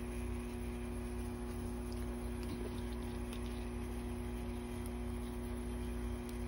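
Steady background hum with two held low tones, and a few faint light ticks about two and a half to three and a half seconds in.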